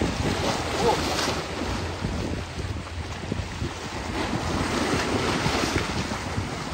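Strong wind buffeting the microphone over the steady wash of sea waves on a rocky shore.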